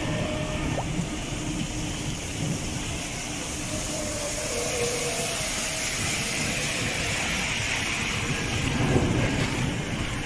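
A car driving slowly through rainwater flooding the street, its tyres swishing through the water. Steady rain hiss runs underneath, and the swish builds in the second half and peaks near the end.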